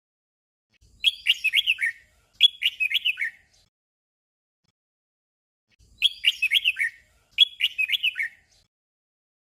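Red-whiskered bulbul singing its short 'double' song: a quick warbled phrase given twice in a row, then the same pair again after a pause of about two and a half seconds.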